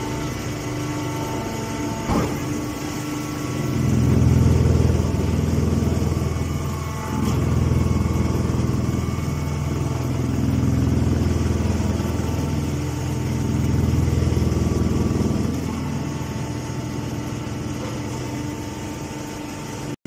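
Hydraulic straw baler running, a steady low machine hum that swells louder four times for a second or two each as it works. There is a single knock about two seconds in.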